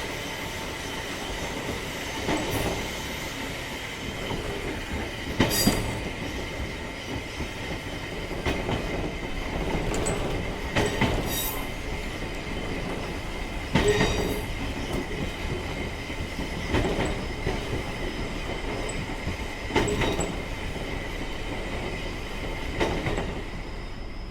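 A train running along the track: a steady rumble with a constant high whine. Sharp clacks come every few seconds as the wheels pass over rail joints.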